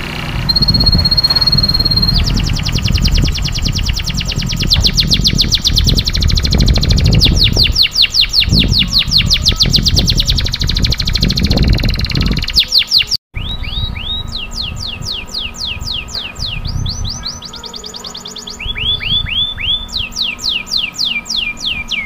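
Domestic canary singing long, very fast rolling trills of rapidly repeated notes. A short held whistle comes near the start. After a brief cutout about thirteen seconds in, it switches between several shorter trill phrases, over a low background rumble.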